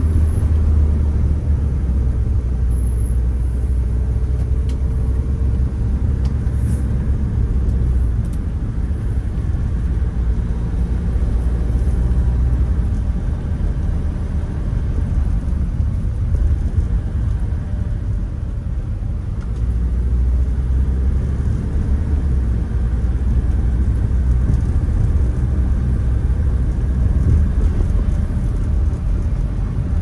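A car being driven: a steady low rumble of engine and road noise that eases off slightly around the middle, with a faint engine tone gliding in pitch in the first few seconds.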